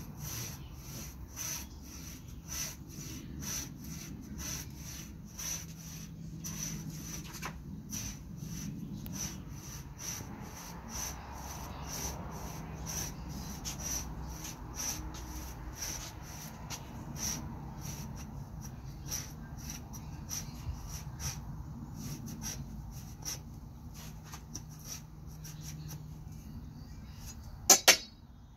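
A blade scraping the bark of a cherimoya rootstock trunk in short, even strokes, about two or three a second. Near the end come two sharp loud clicks in quick succession.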